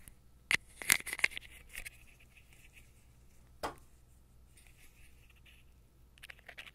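Small metal clicks and light scraping as a spring-jaw bearing tool for miniature fishing-reel bearings is worked, its jaws snapping open with a small, sharp snap.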